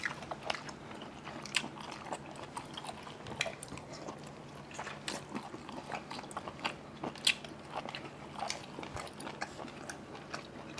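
Close-up chewing and biting of steamed squid, which the eaters call chewy and crunchy: irregular small crisp clicks and crunches, with wet mouth sounds.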